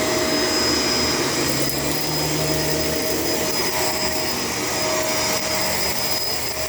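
Shark LA702 Lift-Away upright vacuum cleaner running steadily while vacuuming, its motor giving a constant whine over the rush of air.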